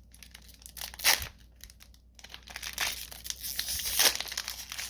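Magic: The Gathering Strixhaven booster pack's foil wrapper being torn open and crinkled. A sharp tear comes about a second in, then steady crinkling builds to a loud crackle near the end.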